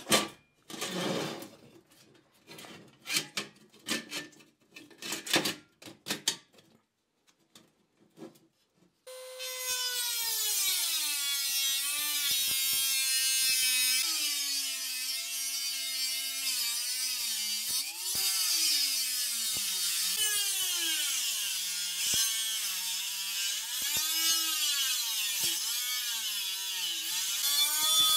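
Short scratchy strokes of a marker drawn across the rusty steel of a helmet shell. After a brief pause, a handheld rotary tool with a cut-off disc starts cutting into the steel helmet shell, its whine sagging in pitch as the disc bites and rising again as it eases off, over a steady grinding hiss.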